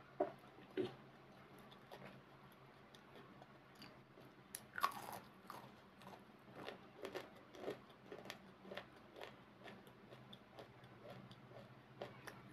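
Close-miked eating sounds: a loud bite into fried food about five seconds in, followed by chewing with many small wet clicks and smacks. Two short sharp sounds come right at the start.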